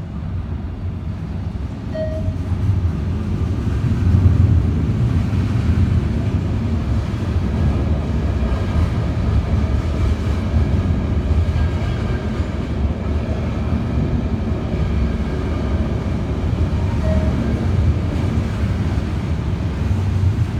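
Freight train rolling steadily past, a continuous low rumble of wheels on rail.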